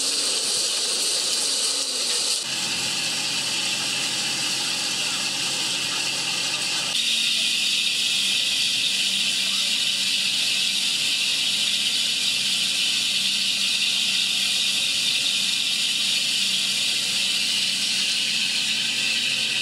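Steady loud hiss with a low machine hum under it. The mix shifts abruptly about two and a half and seven seconds in.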